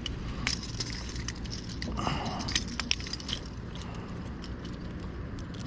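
Scattered light clicks and ticks over a steady low rumble: hand-handling of a hooked small bass and a glide bait in a kayak.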